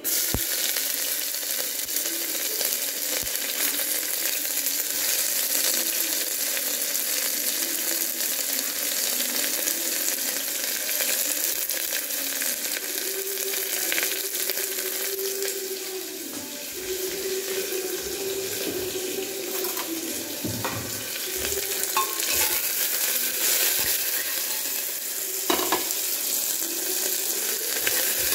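Sliced onions sizzling in hot oil in an aluminium pressure cooker, a steady hiss that starts suddenly as they drop into the oil. A few clicks in the second half as a spoon stirs them against the pot.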